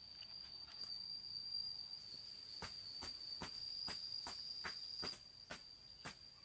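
A steady, high-pitched insect trill that weakens near the end. About two and a half seconds in it is joined by regular footsteps, two or three a second.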